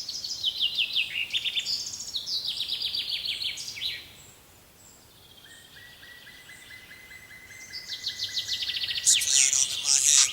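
Songbirds singing: rapid trills of high notes that cascade downward in pitch, over and over, quieter through the middle, then a burst of louder, denser chirping near the end.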